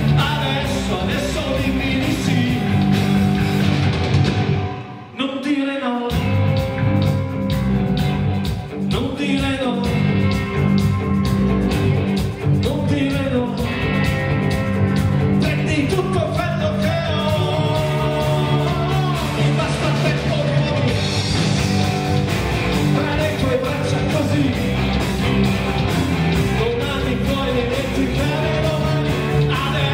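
Live rock band playing: electric guitars, bass guitar and drum kit, with a lead vocal. The band drops out briefly about five seconds in, then comes back in at full volume.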